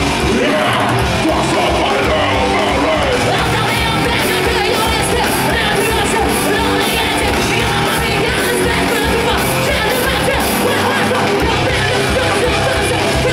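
A live metal band playing at full volume: distorted electric guitars and bass over drums with a rapid kick drum, and the singer yelling the vocals into the microphone.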